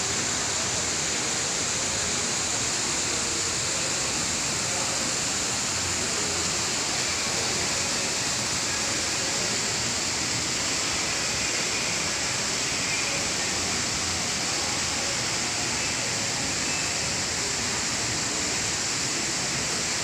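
Indoor ornamental waterfall pouring off an artificial rock wall into a pond: a steady, even rush of falling water.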